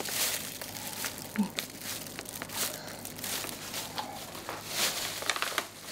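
Packaging crinkling and rustling in quick, irregular crackles as it is handled.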